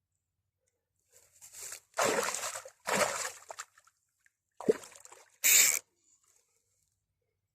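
Water splashing and sloshing in several short bursts, the last one the sharpest.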